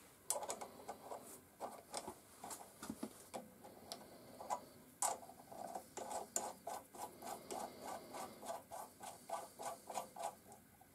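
Light metal clicks and ticks of a steel nut being run by hand onto a threaded M10 stud: a few scattered clicks at first, then a quick, fairly even run of them through the second half.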